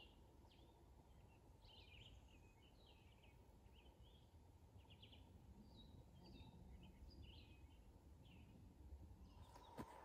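American robin singing faintly, a string of short whistled phrases over a low steady hiss. This is its song rather than its alarm call, a sign the robin is at ease now that the hawk has gone.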